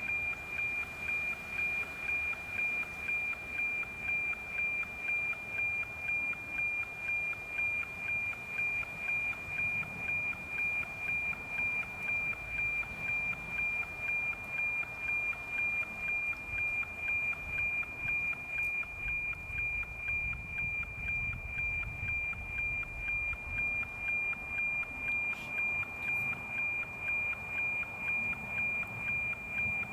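NOAA 19 weather satellite's APT image signal, received on 137.1 MHz and played through an RTL-SDR receiver: a steady high tone over faint static, with a regular tick-tock about twice a second. Each tick marks one scan line of the picture being sent.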